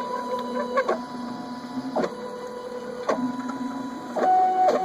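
3D printer's stepper motors whining as the print head and bed move back and forth filling in the infill pattern of small cubes. Steady tones change pitch with each move, with a short click at every change of direction, and near the end the tone steps up higher and louder.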